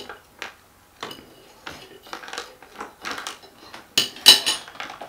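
A metal fork clinking and scraping on a plate in short, scattered taps, with a louder cluster of clatters about four seconds in.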